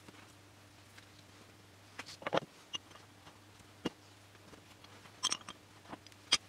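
Heavy flat weight blocks set down one after another on a freshly glued balsa tail fin on a cutting mat, pressing it flat while the glue dries: a scattering of light knocks and clicks, the loudest a little cluster about two seconds in and a sharp click near the end.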